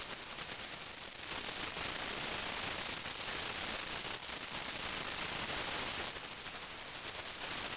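Steady hiss of static-like noise, growing louder about a second in and easing slightly near the end.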